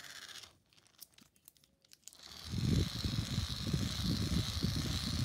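Small handheld wind-up fan spinning on its unwinding spring: a loud rushing whirr that starts about two seconds in, with the blades pushing air close by.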